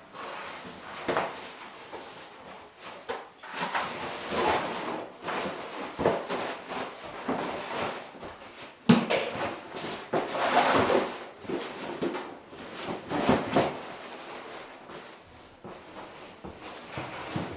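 Work noises from fitting sectional garage door panels: irregular knocks, clicks and scrapes of panels and hardware being handled, with one sharper knock about halfway through.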